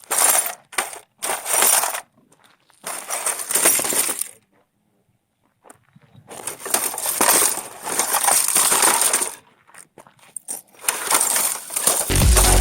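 Several bursts of crunching, clattering noise, each a second or more long, broken by a cut to dead silence about four and a half seconds in. Electronic dance music starts near the end.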